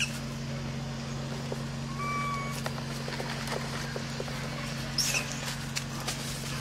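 Short, high squeaks from macaques at the start and about five seconds in, and a brief whistle-like call about two seconds in. A steady low hum and faint scattered clicks run underneath.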